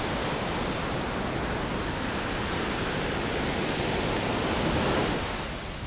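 Ocean surf washing up onto the beach, a steady rushing noise that swells to its loudest about five seconds in and then eases off.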